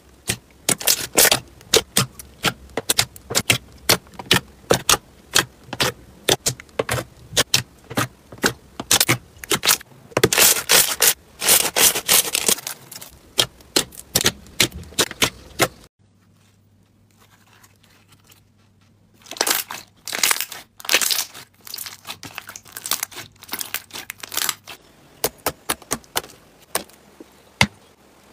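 Clear slime being pressed, squished and stretched by hand, giving rapid sticky pops and crackles, with denser crackling bursts. A pause of a few seconds comes past the middle, then the popping resumes.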